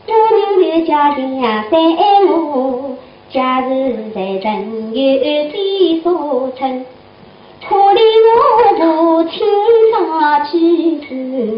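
A woman singing a Shanghai opera (huju) aria in quick, gliding phrases, breaking off briefly twice, about three and seven seconds in.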